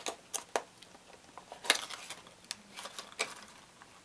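Handling of a hard plastic crankbait lure and its packaging: a handful of scattered, irregular sharp clicks and light rustles, the loudest about a second and a half in.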